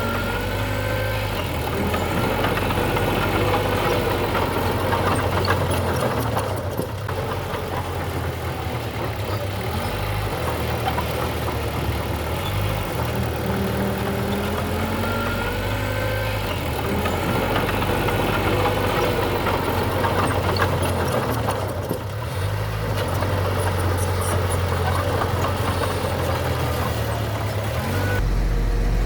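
Bulldozer's diesel engine working under load, a steady low rumble with rising and falling tones above it. The sound swells and eases in a cycle that repeats about every fifteen seconds, as in a push-and-reverse pass.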